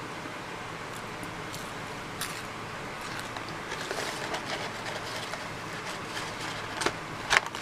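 Electric fan running with a steady whoosh, with a few short clicks from eating, the loudest near the end.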